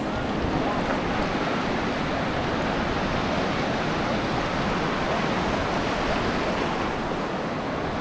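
Sea surf washing in over the sand of the shallows, a steady rushing hiss of breaking waves, with wind on the microphone.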